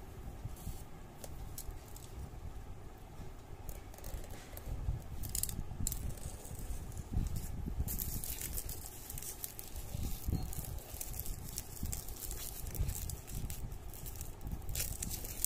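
Plastic shrink-wrap crinkling and scratching in irregular bursts as a box cutter slits and peels the film off a boxed phone, over soft low knocks from the box being handled.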